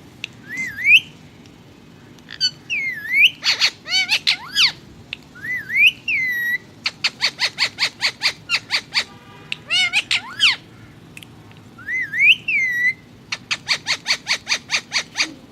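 Indian ringneck parakeet calling: rising-and-falling whistled notes and harsh squawks, with two quick runs of repeated chattering calls at about six a second.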